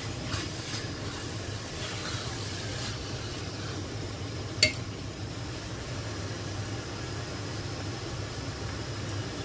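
Silicone spatula stirring and scraping beef and spice paste in an enamelled cast-iron pot, with a faint sizzle over a steady low hum. One sharp clink comes about halfway through.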